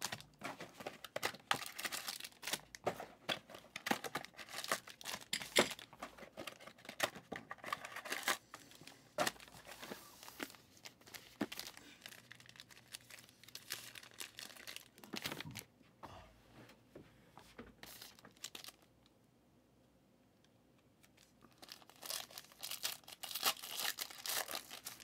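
Plastic wrap and foil card-pack wrappers crinkling and tearing as they are opened by hand. The crackling is dense for the first half, thins out, stops for a couple of seconds, then comes back in a burst near the end.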